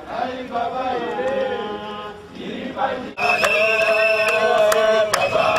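A group of demonstrators singing a protest chant together, voices holding long notes, getting louder about three seconds in.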